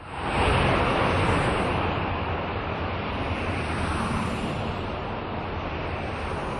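Cars passing on a road: a steady rush of tyre and traffic noise that swells up quickly at the start and is loudest about half a second in.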